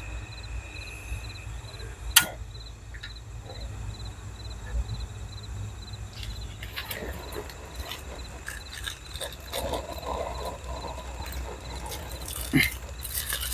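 A single sharp click about two seconds in, as the piezo igniter lights a portable gas camping stove, with crickets chirping steadily throughout. From about halfway on come irregular clicks and rustling of a plastic bag being handled.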